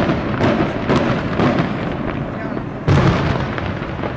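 Aerial fireworks shells bursting in quick succession, with a louder, deeper boom about three seconds in that rumbles away.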